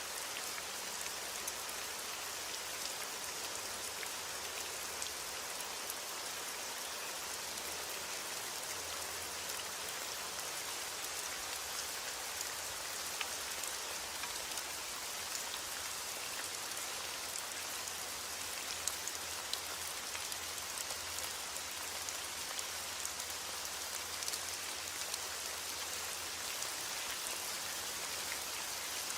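Steady heavy rain falling, a constant hiss with many small drop ticks on a surface.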